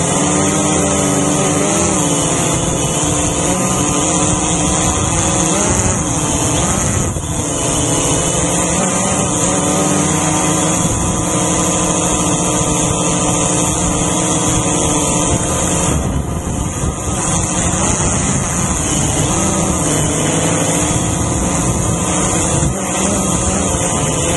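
Quadcopter drone's electric motors and propellers running in flight, heard close up from the drone itself: a steady buzzing whine whose pitch drifts up and down a little as it manoeuvres, with short dips about 7 and 16 seconds in.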